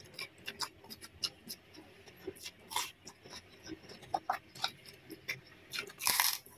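Small clicks and crackles of fingers picking through egg fried rice and kerupuk crackers on a plate, with a louder crackling burst about six seconds in as a mouthful is taken.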